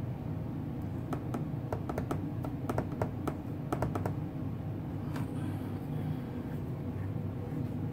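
A quick, uneven run of about a dozen light clicks between about one and four seconds in, over a steady low hum.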